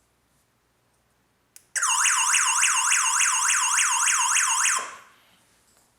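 Home burglar alarm siren set off while the system is armed: after a short click about a second and a half in, a fast warbling wail sweeps up and down about four times a second for roughly three seconds, then cuts off.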